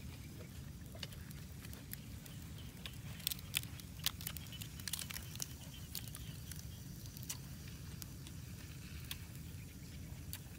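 Small open fire of bamboo and twigs crackling, with irregular sharp pops and clicks that come thickest a few seconds in, over a steady low rumble.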